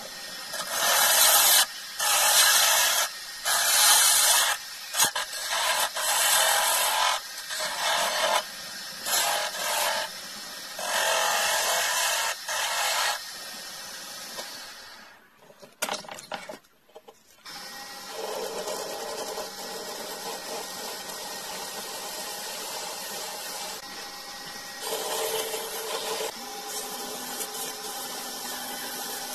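Lathe chisel cutting a spinning resin-stabilized wood handle blank: repeated scraping bursts of a second or two each as the tool is pushed into the wood. After a short break of near quiet, the lathe runs steadily, and sandpaper is held to the spinning piece near the end.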